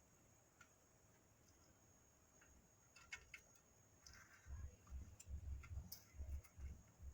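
Near silence with a few faint, scattered clicks and taps; about two-thirds of the way in a low, irregular thumping rumble starts, pulsing roughly three times a second.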